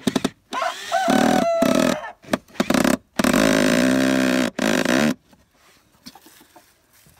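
Cordless drill driving a screw into a wooden board, run in several short bursts of the trigger with one longer steady run in the middle, stopping about five seconds in.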